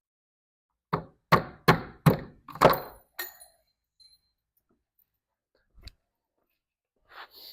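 Hammer striking five quick blows, about a third of a second apart, followed later by a faint single knock.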